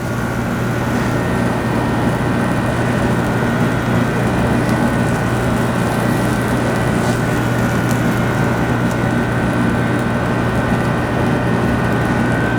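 Steady droning hum of machinery with a faint high whine held above it; it builds up over the first second or two, then stays level.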